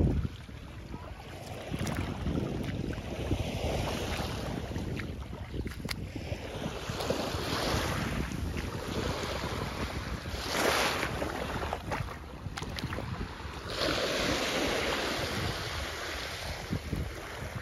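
Wind rushing over the microphone in irregular gusts, with small waves washing onto a sandy shore.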